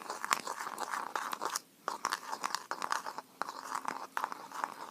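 Soap-and-salt slime mixture being stirred in a bowl: a dense run of sticky, gritty crackles and clicks, with a brief pause about two seconds in.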